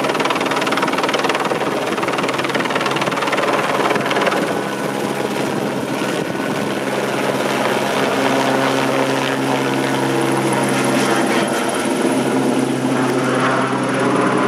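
AS350 Squirrel helicopter departing overhead with a longline slung beneath it: loud, steady rotor and turbine noise whose low tones shift in pitch as it climbs away, with a thin high turbine whine coming in about halfway through.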